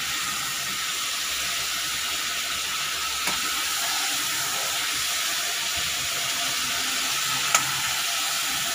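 Chicken pieces frying in hot oil in a pan, a steady sizzle, seared only until the colour changes. Two light clicks, about three seconds in and near the end.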